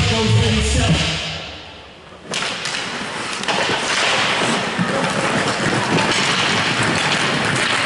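Rink music fading out, then, about two seconds in, ice hockey play cutting in suddenly: skates scraping and sticks and puck clacking over the hum of the rink.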